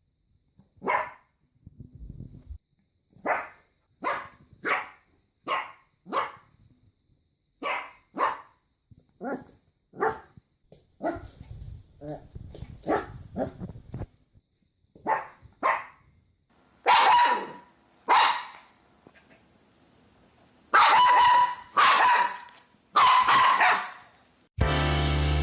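Puppies barking: a long run of single short barks with gaps between them. About two-thirds of the way in the barks become louder and sharper. Music with a drum beat cuts in just before the end.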